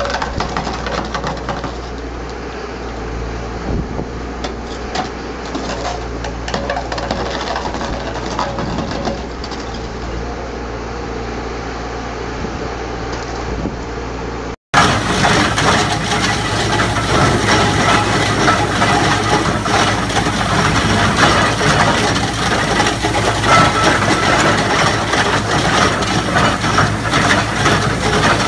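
Heavy construction machinery running: a steady low engine hum, then after an abrupt cut about halfway, louder machine noise full of rapid clattering.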